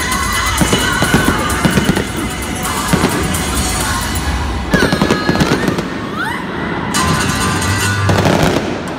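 Fireworks popping and crackling in rapid, dense bursts, with music playing underneath.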